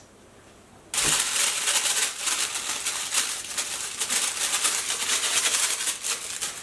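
Yellow plush dog toy being shaken by hand, making a dense, rapid rattle that starts suddenly about a second in and stops shortly before the end.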